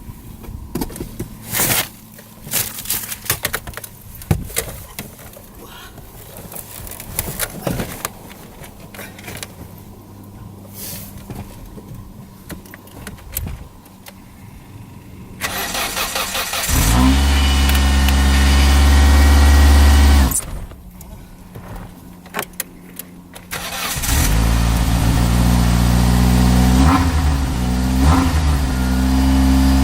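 Crashed Mitsubishi Carisma's engine being cold-started in freezing weather. About halfway through it cranks and catches, runs for a few seconds, then dies; it is cranked again and catches, running on with a couple of brief revs near the end. Faint clicks and rustling come before the first start.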